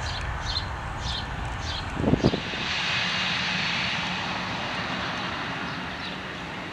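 Jet engines of a Boeing 737-800 (CFM56 turbofans) on final approach: a steady rushing whine with a low hum that comes in about two seconds in and eases slightly toward the end. Before it, faint repeated bird chirps over a low wind rumble.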